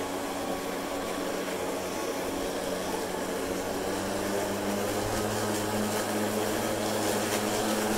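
Kobalt 80V cordless electric lawn mower running while cutting grass: an even, steady hum of the motor and spinning blade.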